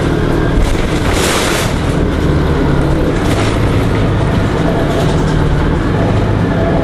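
Orion V CNG city bus engine running loud and steady, with a short hiss about a second in.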